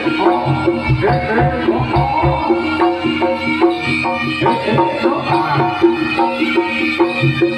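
Live jaranan music: hand drums and struck gamelan-style metal instruments playing a fast, repeating pattern of short notes, with a wavering melodic line above.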